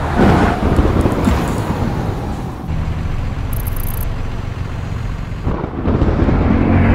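Cinematic sound effects with no music: a heavy low rumble like thunder and a vehicle, with a loud crash just after the start and another swell near the end.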